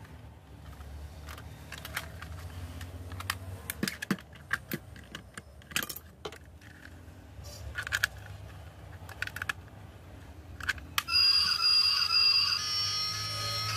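Scattered plastic clicks and knocks as a clear-plastic battery toy train with see-through gears is handled and turned over. About eleven seconds in the toy switches on and plays a tinny electronic tune in stepping notes.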